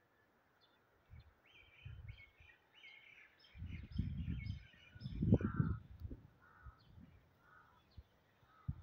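Birds chirping and calling in a quick series, with low muffled rumbles and thuds loudest about halfway through and a short knock near the end.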